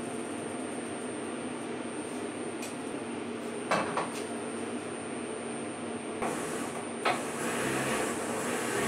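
Steady mechanical hum of the converted Abene VHF-3 CNC milling machine standing by, not cutting, with a faint high whine. There are sharp metallic clunks about four seconds in and again about seven seconds in, and a louder rushing noise near the end.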